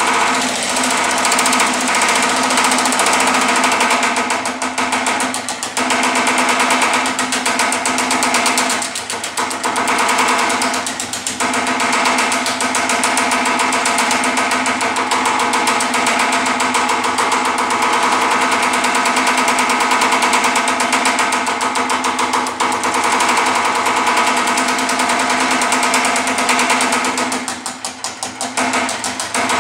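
Power hammer fitted with shrinking dies, running and striking sheet metal in a rapid continuous hammering, easing off briefly a few times as the panel is moved, with a steady ringing hum from the machine.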